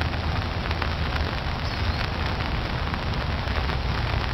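Rain falling on a pond's open water: a steady hiss dotted with the ticks of single drops, over a low rumble.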